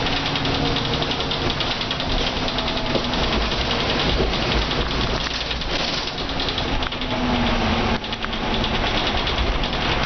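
Mercedes-Benz O405N bus's diesel engine running under way through its ZF automatic gearbox, driven with kickdown, heard from inside the bus. A fast rattle runs over the engine noise, and the sound briefly dips twice in the second half.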